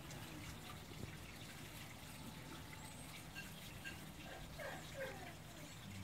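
Patterdale terrier puppies at play: a few faint, short falling yelps about four and a half to five seconds in, over a low steady hum.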